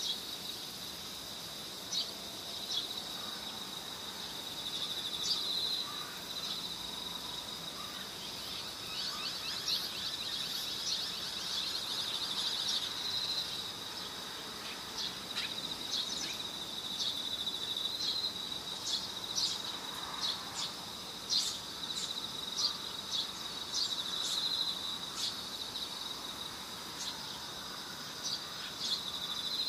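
Insects trilling steadily at one high pitch, swelling every couple of seconds. Short sharp chirps are scattered through the middle.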